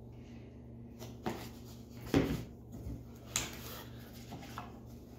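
Cardboard box being set down and opened by hand: a few short knocks and scrapes, the loudest about two seconds in, as the box meets the table and its flap lid is pulled open.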